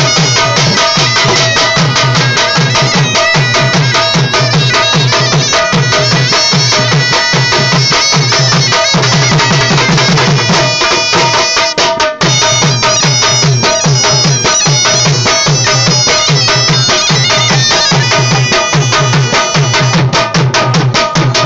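Dhol drums beating a steady dance rhythm, with a reed pipe, a surnai, playing a continuous shrill melody over them. There is a momentary break about twelve seconds in.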